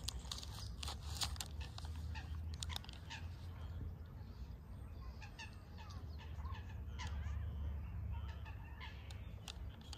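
Waterfowl calling at a lakeshore with short honking and clucking calls, among scattered clicks and over a steady low rumble.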